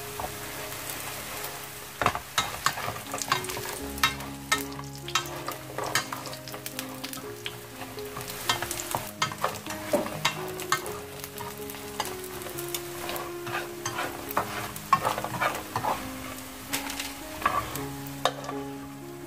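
Battered ginger slices sizzling in shallow oil in a frying pan. From about two seconds in there are frequent clicks and taps of wooden chopsticks and a wooden spatula stirring and turning the pieces as they fry golden.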